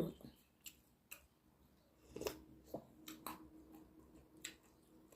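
Quiet eating sounds: a scattered series of small clicks and soft mouth smacks, about seven or eight in all, as a spoon and mouth work through the soup.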